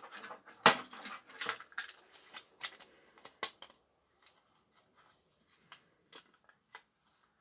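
LRS R8500 restaurant pager's plastic case and circuit board being handled and fitted together: a series of clicks and knocks, the loudest about a second in, thinning to a few faint ticks after about four seconds.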